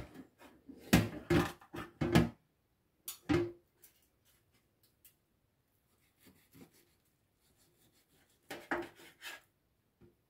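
Kitchen knife cutting through flatbread-wrapped beyti rolls and knocking down onto a metal baking tray: a series of sharp knocks with short ringing. The knocks are loudest in the first few seconds, fainter a little past halfway, and strong again near the end.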